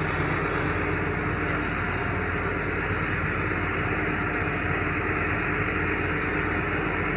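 Caterpillar 320D excavator's diesel engine running steadily, a constant drone with a steady hum and no change in speed.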